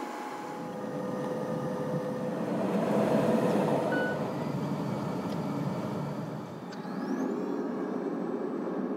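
Airliner cabin noise while taxiing: the steady drone of jet engines and airflow with a steady tone, swelling a little about three seconds in. Near the end there is a brief rising whine.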